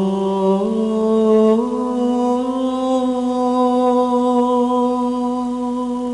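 Background music of slow chant: one sustained vocal line stepping up in pitch twice in the first two seconds, then holding a long note that grows a little softer near the end.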